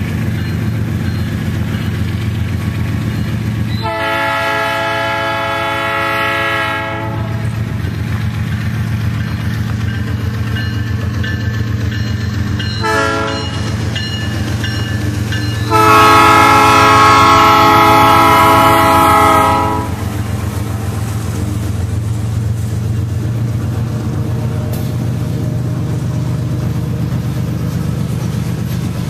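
Canadian Pacific GE ES44AC (GEVO) diesel locomotive passing, its engine rumbling steadily, and sounding its horn: a long blast about four seconds in, a short one near thirteen seconds, and a louder long blast from about sixteen to twenty seconds. Freight hopper cars follow, their wheels clacking over the rail joints.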